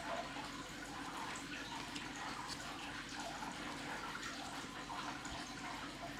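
Faint soft rustling and small ticks of trading cards being slid and flipped through by hand, over a low steady room hum.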